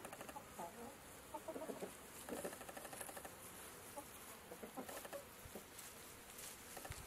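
Chickens clucking quietly, a scatter of short, soft calls over a faint steady hiss, most of them in the first few seconds.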